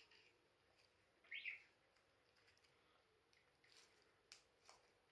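Near silence, broken by one brief high chirp about a second and a half in and a couple of faint clicks near the end.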